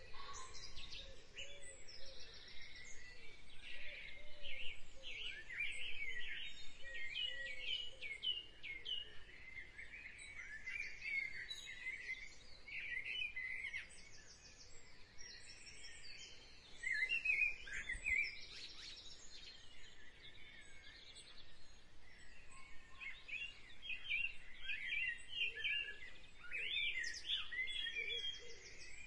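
Birdsong: many short chirps and sweeping calls from several birds, thinning out for a few seconds about halfway through.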